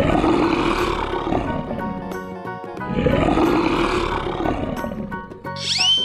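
Two long lion roars, the first right at the start and the second about three seconds in, over background music. A short rising whistle sounds near the end.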